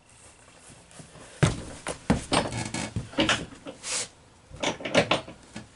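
Irregular knocks and clatters of someone rummaging through hardware for a screw, starting about a second and a half in.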